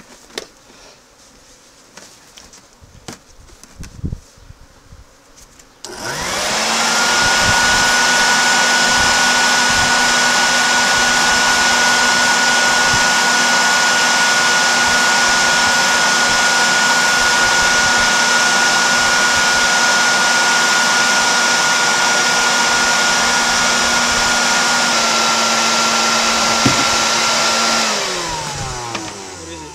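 Bucket Head wet/dry vac powerhead on a five-gallon bucket switched on about six seconds in, spinning up to a loud, steady whine. It runs evenly, then is switched off near the end and winds down with a falling pitch.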